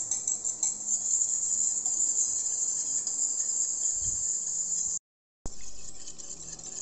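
A steady, high-pitched chorus of chirping crickets, with a steel spoon clinking faintly as it beats eggs in a stainless-steel bowl. The sound cuts out completely for a moment about five seconds in, then the spoon clinks against the bowl more clearly.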